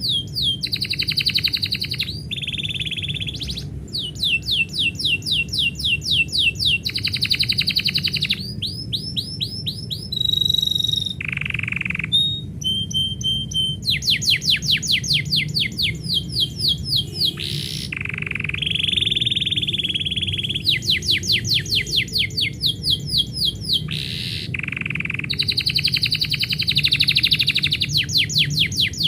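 Domestic canary singing a long, unbroken song of rapid trills: each phrase is a fast run of one repeated note, changing to a new trill every second or two.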